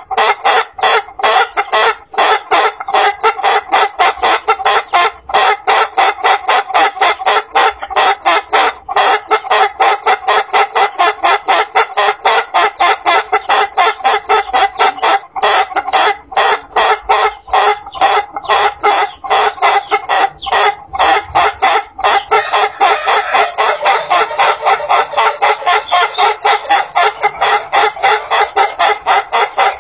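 Ayam Ketawa (laughing rooster) crowing in one long, unbroken run of quick, clipped notes, about six a second, like a human laugh.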